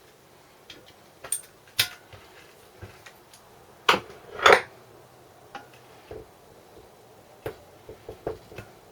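Metal hand tools and small engine parts clinking and knocking during the teardown of a small Briggs & Stratton engine: scattered light taps, with two louder knocks about four seconds in.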